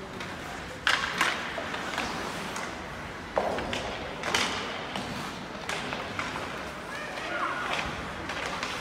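Ice hockey in play: several sharp knocks of sticks and puck on the ice and boards over the scrape of skates, with players' shouts near the end.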